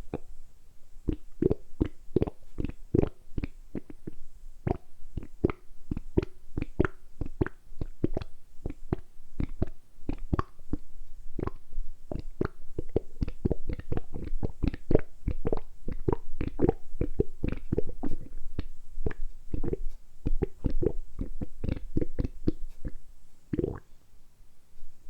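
A person's stomach gurgling in a quick, uneven run of short rumbles and pops, about three a second, with a longer, louder gurgle near the end. The sounds are made on purpose by working the abdominal muscles.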